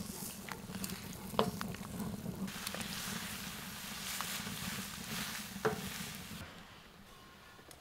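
Food sizzling as it fries in a pan, with a few sharp clinks of a utensil against the pan as it is stirred. The sizzle fades away near the end.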